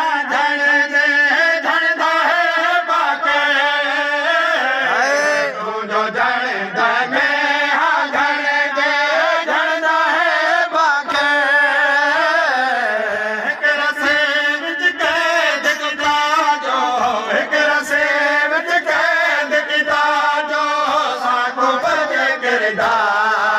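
Men's voices chanting a Seraiki noha, a Shia lament, in a steady melodic recitation, with thumps of chest-beating (matam) roughly once a second keeping time.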